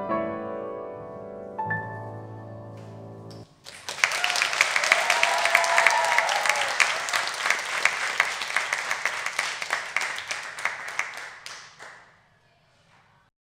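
A grand-piano tune ends, its last notes ringing out and fading. About four seconds in, the audience breaks into applause that dies away after about eight seconds.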